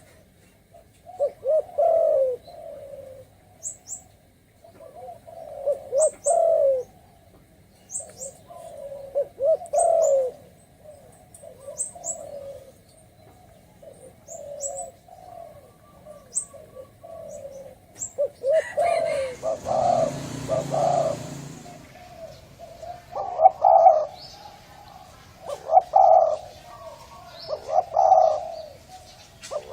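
Spotted dove cooing, in the deep rolling 'thổ rền' style, in repeated phrases about every two seconds. Short high chirps from small birds come in between. A brief burst of rustling noise about two-thirds of the way in, likely wings.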